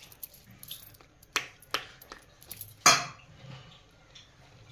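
Metal ladle clinking and knocking against a large cooking pot of biryani rice: a handful of sharp clinks, the loudest about three seconds in.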